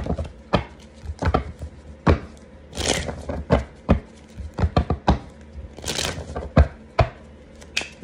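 Tarot cards being shuffled and knocked against a hard surface: a run of irregular sharp taps, with two brief rustling shuffles about three and six seconds in.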